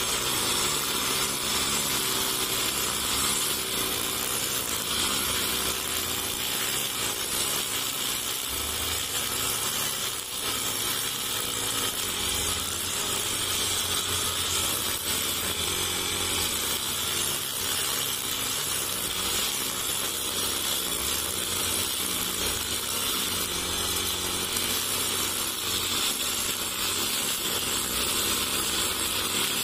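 Honda GX four-stroke backpack brush cutter running steadily at high revs, its spinning nylon trimmer line cutting short grass, with a brief dip in level about ten seconds in.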